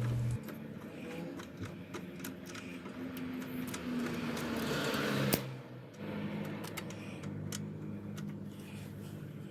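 Faint workshop sounds: light metallic clicks and tool handling over a low steady hum, with one sharper click about five seconds in.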